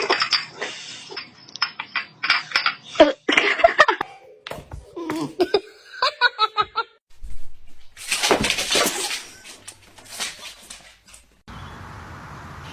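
People laughing in short bursts, with other brief sounds between them that change abruptly several times.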